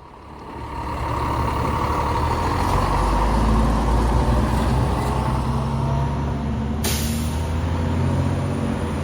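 Fire engine's diesel engine running with a low, steady rumble that builds over the first second. A brief hiss comes about seven seconds in.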